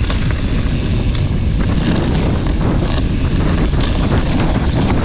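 Wind buffeting the camera microphone over the rumble and rattle of a mountain bike rolling fast along a dirt trail.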